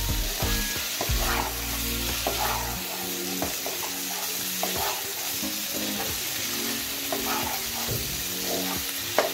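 Chicken liver pieces frying in onion masala in a non-stick pan: a steady sizzle with repeated scraping strokes as a spatula stirs them. A low hum stops about three seconds in, and the spatula knocks once sharply just before the end.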